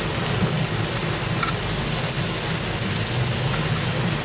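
Breaded beef cutlet sizzling steadily as it sears on a hot tabletop plate, a continuous frying hiss with a steady low hum underneath.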